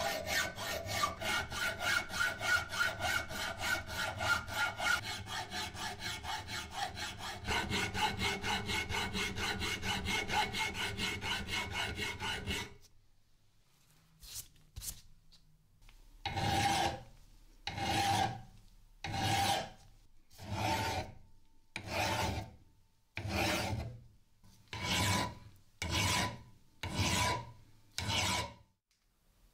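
Steel hand file rasping across a steel hammer head. Quick, steady strokes run for about thirteen seconds, then after a short pause come about ten slower, separate strokes, a little over one a second, each with a faint ring.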